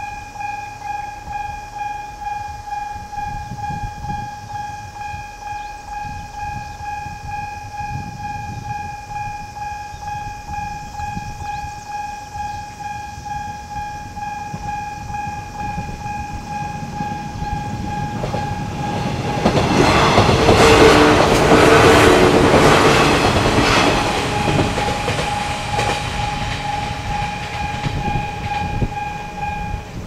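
Japanese railway level-crossing alarm bell dinging rhythmically, about twice a second, while a JR 115 series four-car electric train passes over the crossing. The train's noise builds, is loudest about twenty to twenty-four seconds in and drowns out the bell, then fades as the bell continues.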